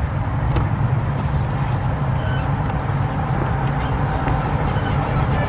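Steady low engine rumble of classic cars moving at low speed: a mid-1950s Ford sedan rolling toward the microphone with a 1960s Ford Mustang close behind it.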